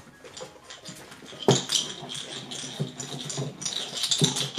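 Poodle puppies giving short, high-pitched yips and squeals in play, starting about a second and a half in and repeating several times.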